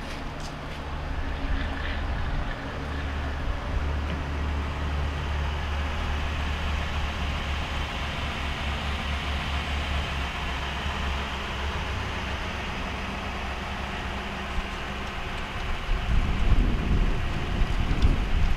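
Ford Police Interceptor Utility's engine idling with a steady low hum. Wind buffets the microphone for the last couple of seconds.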